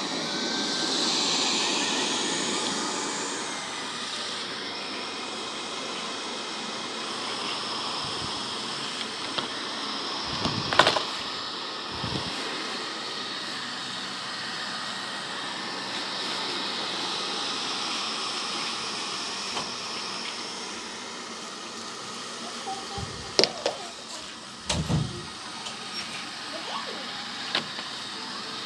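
Robot vacuum cleaner running with a steady whirring hiss, broken by a few short knocks, a couple near the middle and a few more near the end.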